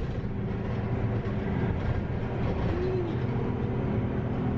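Steady low rumble of a moving city public-transport vehicle heard from inside the passenger cabin.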